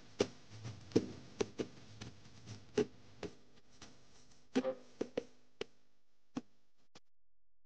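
Sparse, irregularly spaced percussion hits from the intro music, growing softer and stopping about seven seconds in.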